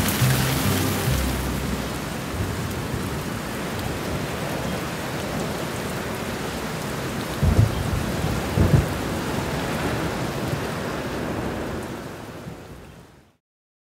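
Steady rain with low thunder: two short rumbles about seven and a half and nearly nine seconds in, then the rain fades out and stops near the end.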